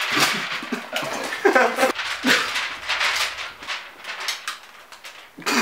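Breathy mouth and nose noises, snorts and splutters, with a short squeaky whine about one and a half seconds in.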